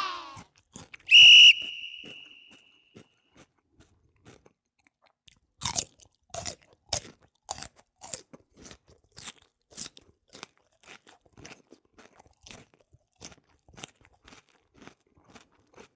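A parrot gives one short, loud whistle about a second in. It is followed by a run of crunching clicks, one or two a second, that grow fainter, like the bird biting and chewing with its beak.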